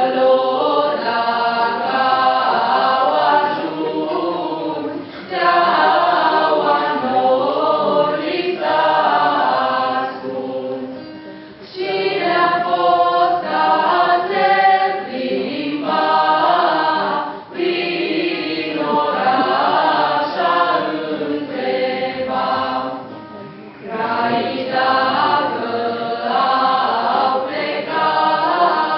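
Choir of carolers singing a Romanian Christmas carol (colindă), in phrases of a few seconds with short breaks between them.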